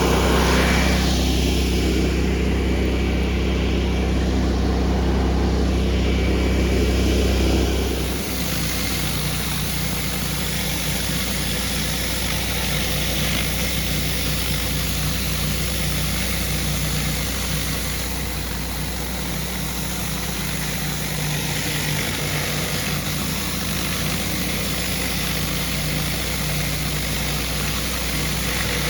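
Pressure washer's gas engine running steadily under the hiss of high-pressure water from a rotary surface cleaner on concrete; about eight seconds in the deep engine tone drops and the sound settles into a lighter, steady run.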